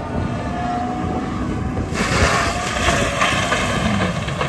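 Case TV620B compact track loader's diesel engine running under load while its Loftness Battle Ax forestry mulcher drum spins. About two seconds in, the drum bites into the ground and stump debris, and a loud rough hiss of thrown chips and dirt joins the rumble.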